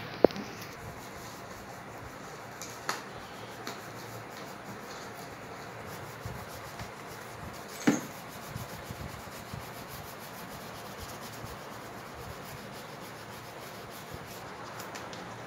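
Crayon rubbed back and forth on poster paper while colouring, a steady scratchy rubbing. A few sharp knocks stand out, one just after the start and a louder one about eight seconds in.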